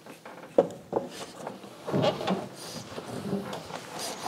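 Person climbing into the cockpit of a single-seat race car: two sharp knocks about half a second and a second in, then shuffling and rubbing of shoes and clothing against the car's body as he settles into the seat.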